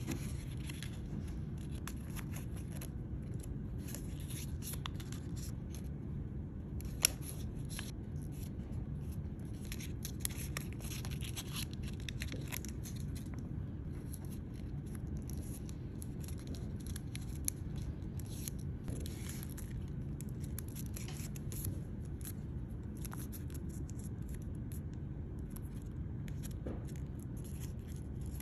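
Light clicks and scrapes, scattered throughout and a few sharper ones among them, over a steady low background rumble.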